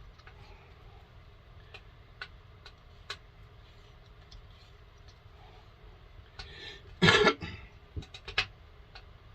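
Scattered light clicks and knocks as a chainsaw's plastic parts are handled and fitted, with a louder scraping clatter about seven seconds in and a few sharper knocks after it.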